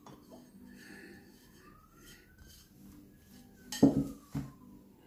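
A plate being put down with a sharp clatter about four seconds in, followed half a second later by a second, lighter knock; before that, faint soft taps as lime zest is brushed off the plate onto meat.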